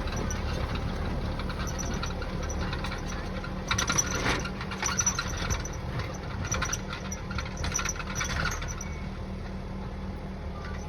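Tractor engine running steadily while ploughing, with a spell of clicking and rattling from about four seconds in to past eight seconds.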